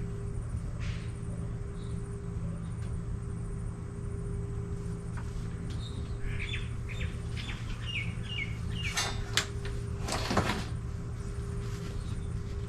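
A bird sings a run of about six short falling notes, and a few seconds later comes a short spell of loud scraping and rustling from parts being handled. A steady low hum sits underneath.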